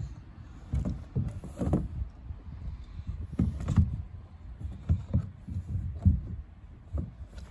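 Irregular dull thumps and scuffs of a child's sandals and hands against a plastic playground climbing wall and its holds, about a dozen knocks at an uneven pace.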